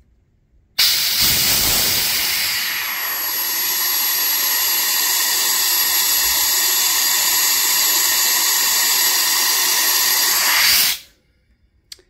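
Compressed air at about 100 psi rushing through a 1/4" Stedlin full-flow quick-connect plug in a Milton universal coupler, flowing about 29.5 CFM: a loud, steady hiss that starts abruptly about a second in when the ball valve is opened and cuts off suddenly near the end when it is shut.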